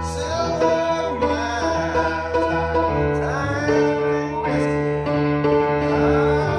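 Piano playing, with a man singing over it at times.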